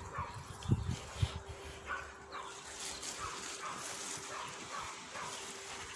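A warning siren holding one steady tone, with an animal's short falling yelps repeating about twice a second over it from about two seconds in.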